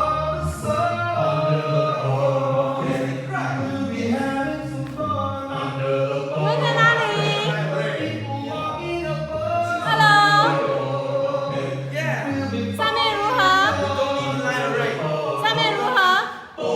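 A cappella vocal group singing in harmony, with a bass voice moving in steps beneath the upper parts and vibrato on held notes. The singing breaks off briefly near the end.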